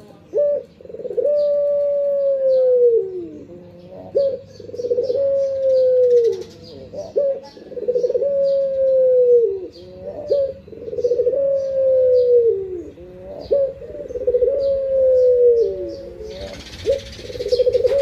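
Caged ringneck dove (Barbary dove, 'burung puter') cooing over and over: each call is a short note followed by a long coo that slides down in pitch, about five times in a row.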